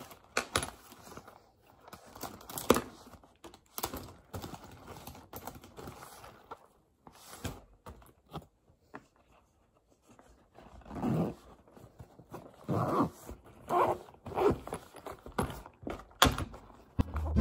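Pens and pencils being handled and packed into a fabric pencil case: small plastic clicks and knocks, with fabric rustling. A run of louder rustling strokes comes in the second half as the case is closed.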